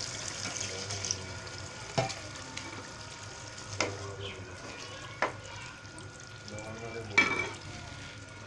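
Curry in a nonstick wok sizzling and simmering with freshly added water, while a spoon stirs it and knocks against the pan a few times. Near the end there is a louder clatter as the glass lid is put on.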